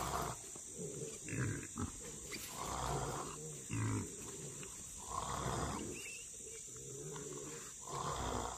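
Trapped wild hogs grunting, with three louder calls about two and a half seconds apart and lower grunting between them.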